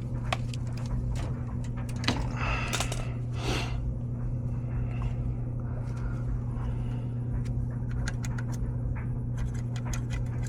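A steady low hum with scattered clicks and scrapes as thermostat wire and tools are handled, ending in a quick run of sharp ticks.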